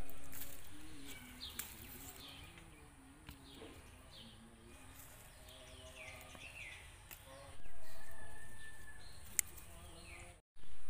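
Small birds chirping with repeated short, falling calls over steady outdoor background noise. The background jumps louder about three-quarters of the way through, and there is a single sharp click near the end.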